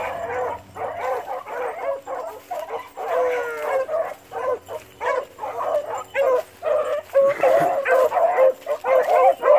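A pack of beagles baying on a rabbit's trail, many voices overlapping in a continuous chorus that grows louder near the end as the pack comes closer.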